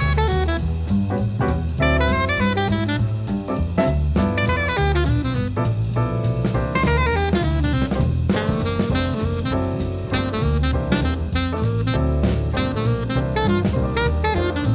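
Jazz music with a drum kit keeping a steady beat under a moving melody line.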